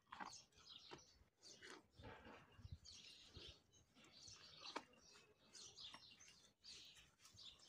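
Faint small birds chirping over and over, with a few soft low bumps about two to three seconds in.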